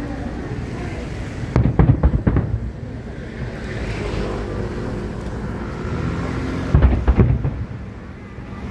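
Aerial fireworks shells bursting: two quick volleys of several sharp, loud bangs, one about a second and a half in and the other about five seconds later, over a steady low background rumble.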